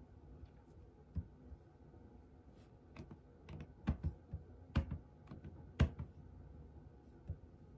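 Scattered clicks and key presses at a computer, a few at a time with pauses between, over faint room tone.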